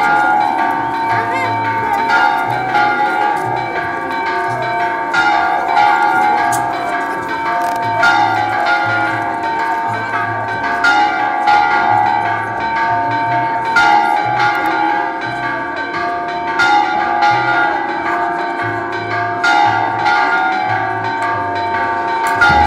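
Church bells ringing a continuous peal, struck again and again in a steady rhythm, their tones ringing on between strikes.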